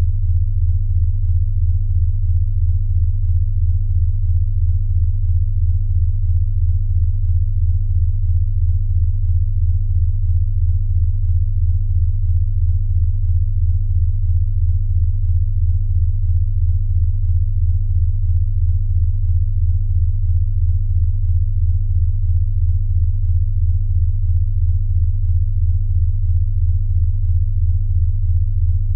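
Steady low pure tone, a deep hum around 100 Hz, pulsing evenly a few times a second: a synthetic sound-therapy tone track for snoring.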